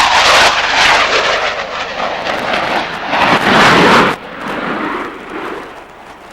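Military jet aircraft making a low, fast pass, its jet engines giving a loud rushing noise. The noise cuts down sharply about four seconds in and then fades.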